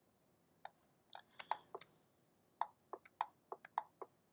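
Faint clicking of a computer mouse and keyboard, about a dozen short clicks at irregular spacing, some in quick pairs.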